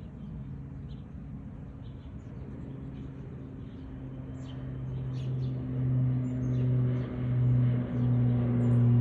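A low, steady motor drone that grows louder from about halfway and then swells and dips about once a second, with faint bird chirps over it.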